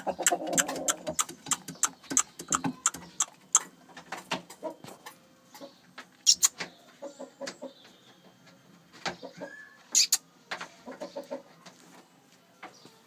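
Aseel rooster clucking, among many sharp clicks and knocks that come fast in the first few seconds and then thin out.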